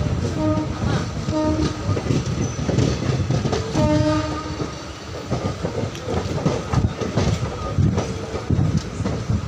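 Passenger train running, heard from a coach window: rumble and clickety-clack of the wheels over the rail joints. A locomotive horn sounds three short blasts within the first four seconds, the third one longer.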